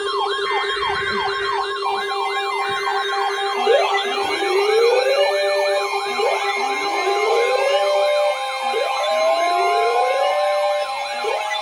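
Several emergency-vehicle sirens layered together: a fast yelp sweeping about three times a second and, from about four seconds in, slow rising wails every couple of seconds, over steady tones.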